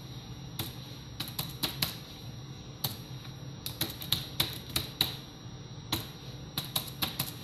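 Typing on a computer keyboard: irregular key clicks in quick runs with short gaps between them.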